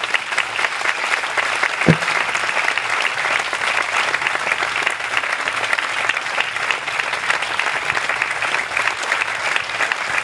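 A large audience applauding steadily, with a single thump about two seconds in.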